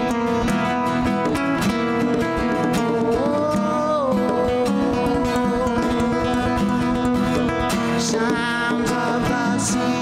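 Live acoustic music: a nylon-string classical guitar and a steel-string acoustic guitar play over conga hand drums.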